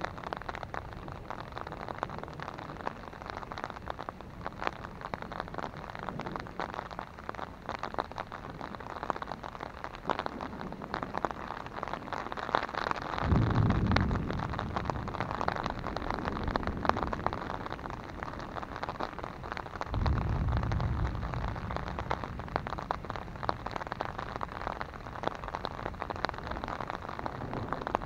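Rain falling on an umbrella overhead, a dense steady ticking throughout. Two low thunder rumbles break in: one starts suddenly about halfway through and is the loudest moment, and another follows about two-thirds of the way in.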